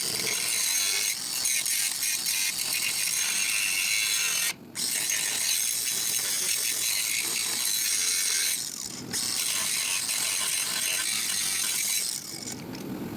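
Angle grinder grinding out a crack in a steel frame to prepare it for welding. It runs steadily with a high-pitched hiss, cuts out briefly about four and a half seconds in, dips again near nine seconds and stops about twelve seconds in.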